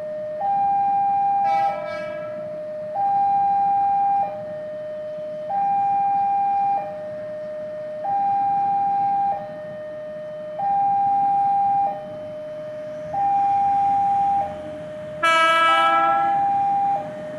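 Railway level-crossing warning alarm sounding a steady alternating two-note signal, high and low notes switching about every second and a quarter. A train horn blows twice: a short blast about a second and a half in, and a longer one near the end as the train approaches.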